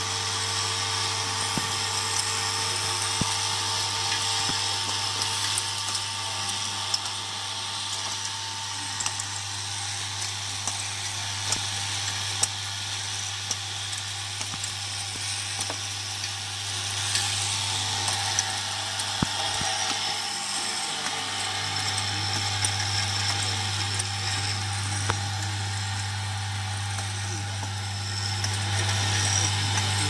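Vibratory feeder tray buzzing with a steady low hum while plastic zipper pulls rattle along its track, with scattered sharp clicks. About two-thirds of the way through the hum briefly fades, then comes back stronger.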